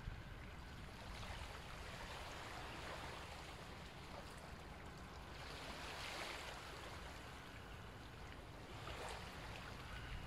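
Slow ujjayi breathing: soft, rasping breaths through the nose with the throat slightly constricted, a faint ocean-like hiss that swells and fades every few seconds.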